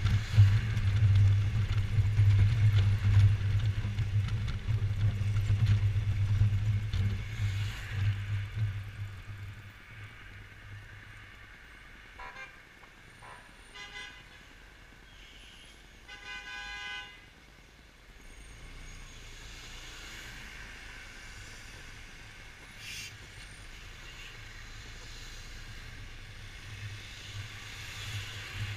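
Vehicle horn honking in city traffic: a couple of short toots, then one blast of about a second, a little past the middle. Before it comes a steady low rumble from riding the scooter, which fades away after about ten seconds as it slows.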